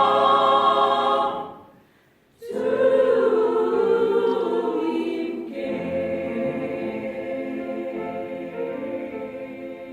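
Small vocal ensemble singing long held chords in close harmony. The first chord dies away to silence about two seconds in, and a new chord enters sharply half a second later. It shifts about halfway through, then slowly fades toward the end.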